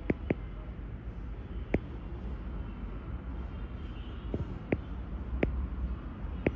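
A handful of sharp, short clicks, spread irregularly, over a steady low background rumble.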